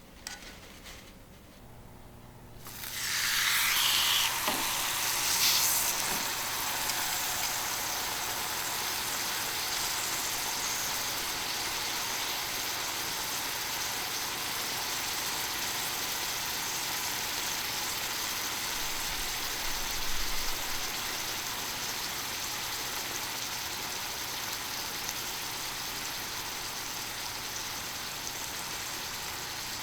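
Beef loin steak laid on a hot iron griddle, bursting into loud sizzling about two and a half seconds in, then settling into a steady sizzle as it sears.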